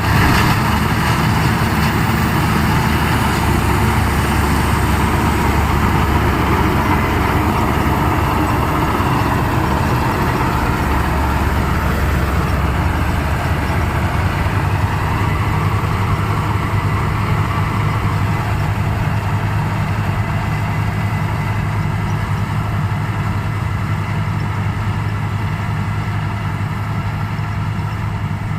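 New Hira combine harvester running steadily: a low diesel engine hum under a dense mechanical noise, easing slightly toward the end.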